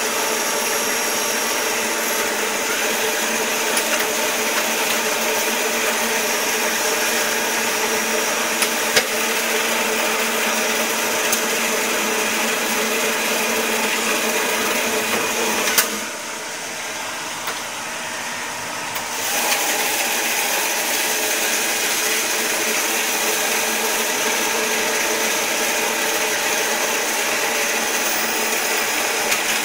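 CNC automatic lathe running, a steady mechanical whir with several fixed tones over the patter of flowing cutting oil, and an occasional sharp click. About sixteen seconds in it goes quieter for about three seconds, then comes back at full level.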